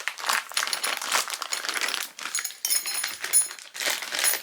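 Balance bike parts being handled: continual clicking and rustling, with light metallic clinks about halfway through.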